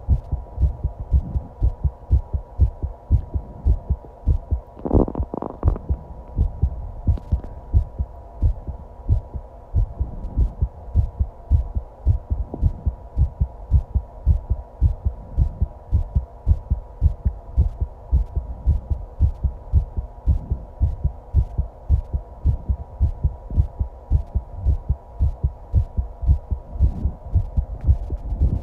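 A person's own heartbeat, picked up close to the body: a steady, regular train of low thumps over a steady hum. About five seconds in there is a short, louder noise.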